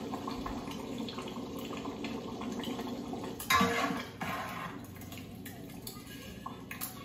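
Thick butter chicken sauce bubbling and spitting in a large pot, with a metal ladle scraping and knocking against the pot in a louder burst about three and a half seconds in.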